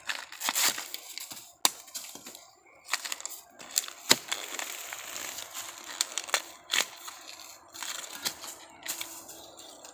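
Fresh bamboo shoots being peeled by hand: the stiff husk sheaths split and tear off with irregular sharp cracks, amid crinkly tearing and rustling of the husks.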